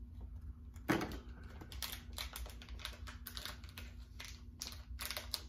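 Blind-box pin packaging being opened by hand: a rapid, irregular run of small clicks and rustles, with one louder knock about a second in.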